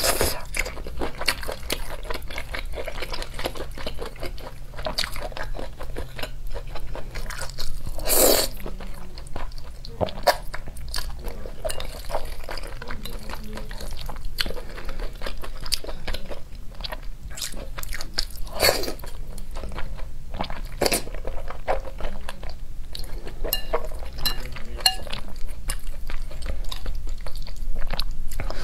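Close-miked chewing and biting of shrimp and spicy noodles: a steady run of small wet mouth clicks and crunches, louder now and then.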